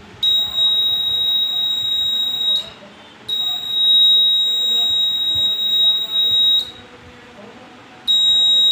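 Piezo buzzer on a DIY light-sensing circuit giving a steady high-pitched beep, sounding in three long spells of two to three seconds each with short gaps between.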